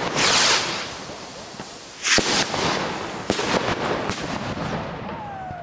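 Fireworks rockets from a rocket rack going off: two loud rushing hisses about two seconds apart, and several sharp bangs as the rockets burst, with crackling in between.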